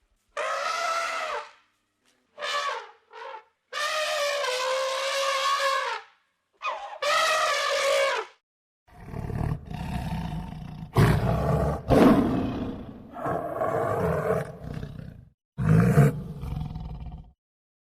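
Animal calls: several separate pitched calls of one to two seconds each with short gaps, then from about halfway a deeper, rougher roaring in a series of bursts, likely a different animal.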